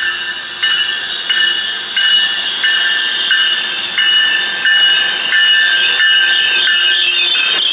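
Caltrain double-decker commuter train pulling into a station, its running and hissing growing louder near the end as it draws alongside, with a ringing tone repeating about one and a half times a second throughout.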